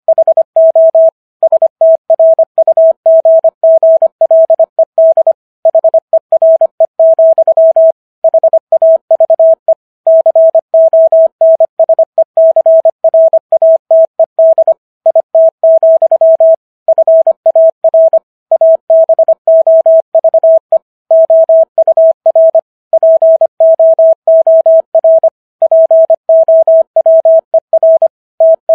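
Morse code at 25 words per minute: a single steady beep tone keyed on and off in rapid dots and dashes, with brief pauses between words, spelling out the text of the Gettysburg Address.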